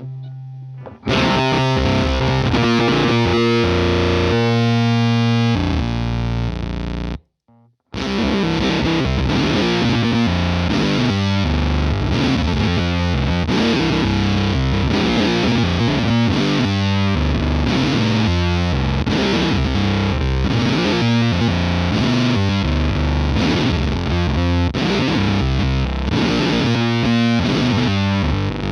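Electric guitar played through an Earthquaker Devices Bit Commander octave-fuzz synth pedal into a Vox AC30C2 amp, giving a heavily distorted, fuzzy tone. A phrase of held notes breaks off about seven seconds in, and then a long run of quick notes follows.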